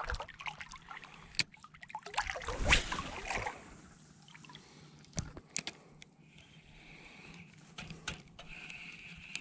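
Shallow water sloshing and trickling around a wading angler, with a few sharp clicks from a spinning reel as a lure is cast and reeled in.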